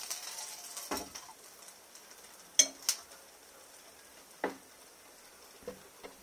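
A faint frying-pan sizzle dies away, then a handful of separate clinks and knocks of cookware and a fork against a glass plate.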